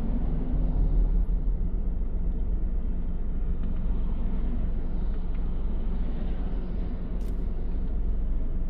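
Steady low rumble of a car driving, heard inside its cabin: engine and road noise.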